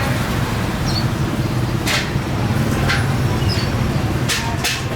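Steady low rumble of passing street traffic, with a few sharp clacks about two seconds in and twice near the end.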